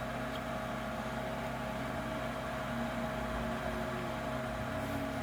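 Steady mechanical hum with a constant pitched tone over an even hiss, unchanging throughout.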